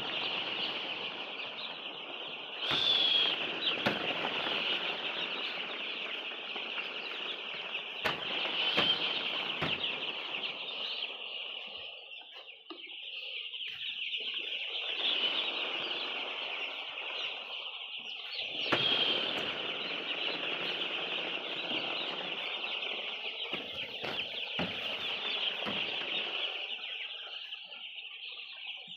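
A large flock of poultry-house chickens calling all at once in a continuous high-pitched cheeping chorus, with rustling and occasional wing flaps.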